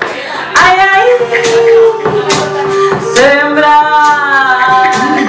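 A woman singing long held notes into a microphone, the second held for nearly two seconds, over a hand rattle shaken about twice a second.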